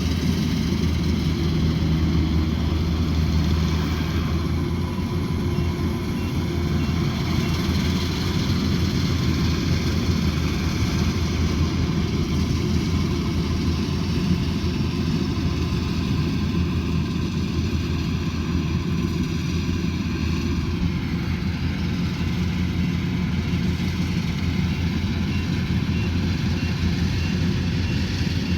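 Rice combine harvester's diesel engine running steadily at working speed, a continuous low drone with a slight shift in pitch a little over two-thirds of the way through.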